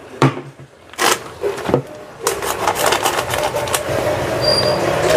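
A few knocks of a plastic bowl being set down on a counter, then from about two seconds in the steady crinkling rustle of a plastic packet as seasoned frying flour is poured from it into the bowl.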